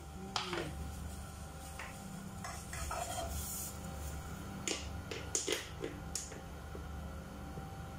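Kitchen clatter: an aluminium pot knocked down with a brief metallic ring about half a second in, then a quick cluster of sharp clicks and taps as a plastic squeeze bottle is handled, all over a steady low hum.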